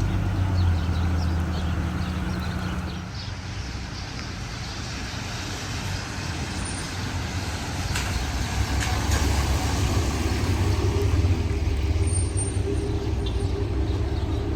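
Tow truck engine and road noise while driving. The engine note eases off about three seconds in and builds again from about six seconds.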